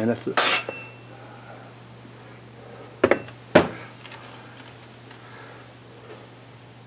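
Two sharp metallic clanks about half a second apart as a stainless steel sheet is handled and set in place, over a steady low hum.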